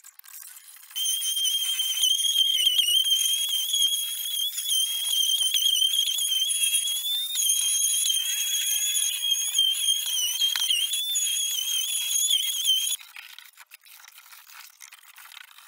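Electric random orbital sander running on pallet-wood boards with a steady high whine that wavers slightly in pitch. It starts about a second in and stops about three seconds before the end.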